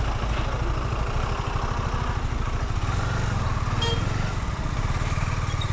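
KTM Duke 250's single-cylinder engine running steadily while being ridden, with a brief click about four seconds in.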